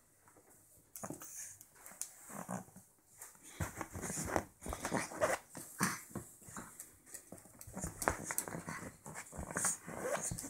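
Pug puppy making small, irregular growls and whimpers while play-biting a hand, starting about a second in, mixed with short scuffling clicks.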